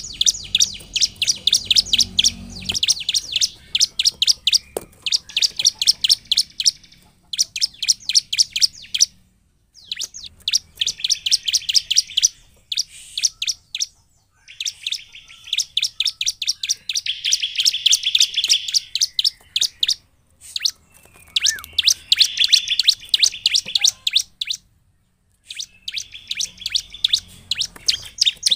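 Bar-winged prinia (ciblek) singing in full voice (gacor): fast runs of sharp, high chipping notes in bursts of a few seconds, broken by short pauses.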